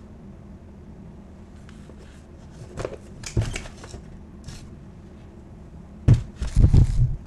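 Hands handling a large plastic jug of cleaner and a shrink-wrapped stack of sponges in a plastic tub: light clicks and rustles, then a few loud thumps about six seconds in.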